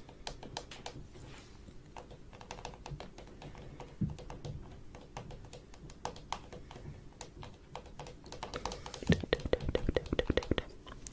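A run of quick, irregular light taps and clicks, which become louder and more crowded about nine seconds in.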